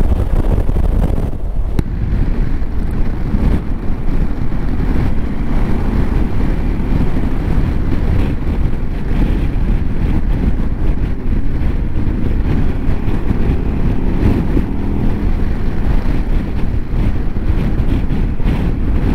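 Heavy wind buffeting on the microphone of a motorcycle riding at speed, with the KTM 990 SMT's V-twin engine running steadily underneath.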